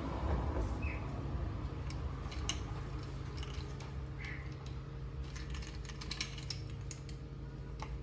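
Irregular light clicks and taps from hands and tools working a window screen's frame and rubber spline, over a low steady hum.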